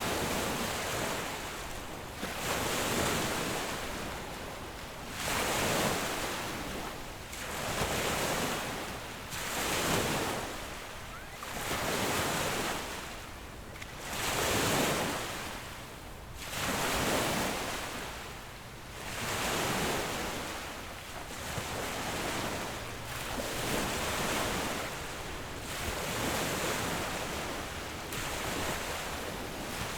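Sea waves breaking and washing up on a beach, swelling and falling back in a steady rhythm about every two seconds.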